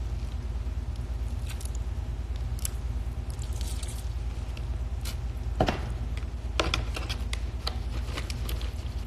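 A lemon being squeezed by hand over cooked lobster meat: scattered small wet squelches and clicks, the loudest about five and a half seconds in, over a steady low hum.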